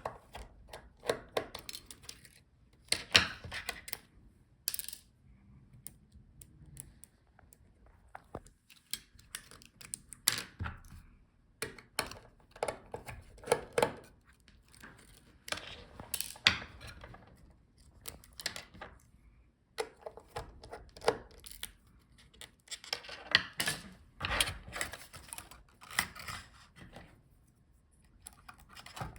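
Small clicks, taps and scrapes of a precision screwdriver and tiny screws on a laptop palmrest as the touchpad is unscrewed and lifted out, coming in scattered short bursts with a few sharper clatters.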